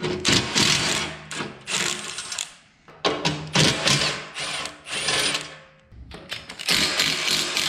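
Milwaukee M18 cordless impact driver hammering old bolts loose from the forklift's steel side panels. It runs in about five bursts of a second or less, with short pauses between.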